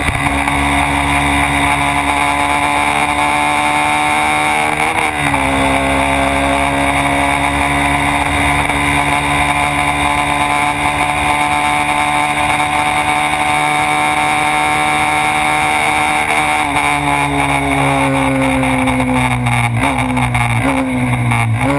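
Honda Twister 250's single-cylinder four-stroke engine pulling hard at high revs, with a brief dip in revs about five seconds in and a long steady climb. Over the last few seconds the revs fall with three short jumps in pitch: downshifts while braking for a corner.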